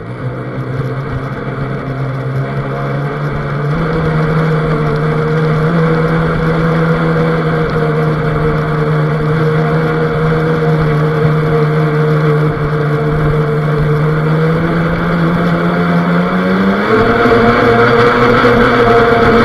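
Radio-controlled boat's motor running under way, recorded on board: a steady whine that steps up in pitch about four seconds in and again near the end as the throttle opens, over the rush of water against the hull.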